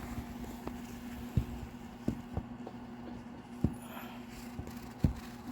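Scattered sharp knocks and clicks, about five spread unevenly, over a steady low hum.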